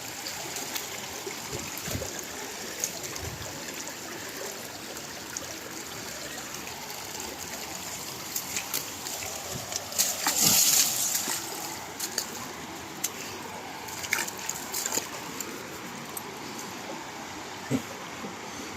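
River current running steadily through fast water, with a louder splash about halfway through and a few scattered clicks.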